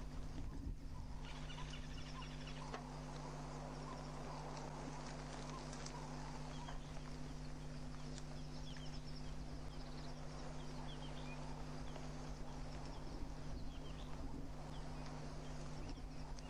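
Birds calling with short, scattered chirps over a steady background hiss and a low, constant hum.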